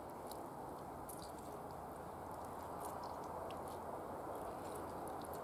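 Half a lemon squeezed by hand over raw carp steaks: faint wet squishing with scattered small crackles, over a steady background hiss.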